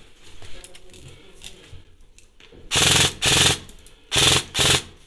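Ares Amoeba 009 airsoft electric rifle, with high-torque motor and 18:1 gears, firing four short full-auto bursts of about a third of a second each. They come as two quick pairs about a second apart.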